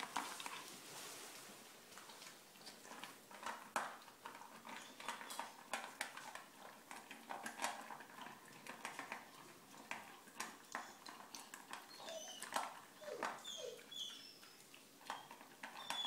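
Puppy eating dry kibble from a stainless steel bowl: faint, irregular crunching and clinks of food against the metal bowl.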